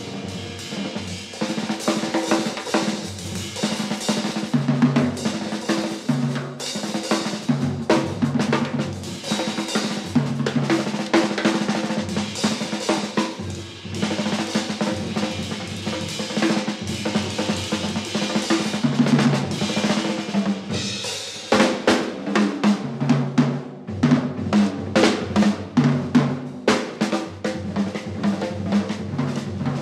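Live jazz band with the drum kit to the fore: busy snare, tom and cymbal playing over held bass notes. The drumming turns sparser and more accented about two-thirds of the way through.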